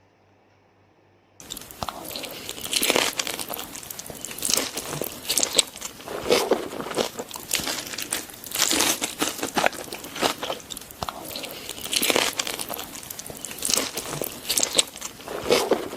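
Close-miked eating: a person chewing and crunching food with many small mouth clicks, starting suddenly about a second and a half in and going on in irregular bites.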